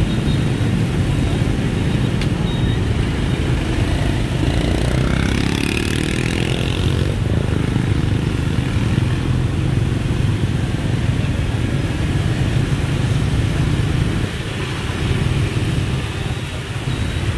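Dense motorbike and scooter traffic on a wet street: a steady low rumble of small engines, with one engine's note rising as it speeds up about five seconds in.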